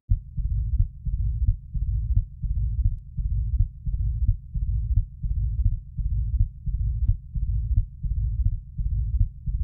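Recorded heart sounds of mitral stenosis: a low-pitched rumble like a drum roll after the second heart sound, repeating with each beat at a little more than one beat a second. The murmur is heard at the mitral area and is not loud.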